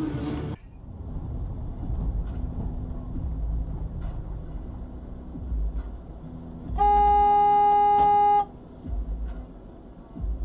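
Car horn giving one long, steady blast of nearly two seconds, over the low rumble of a car's engine and road noise.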